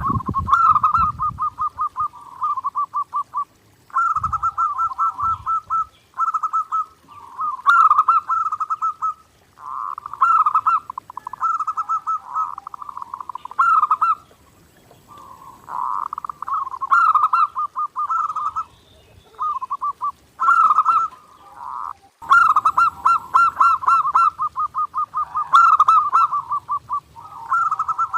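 Zebra dove (perkutut) cooing continuously: phrase after phrase of rapid staccato coos, each lasting one to two seconds with short gaps between.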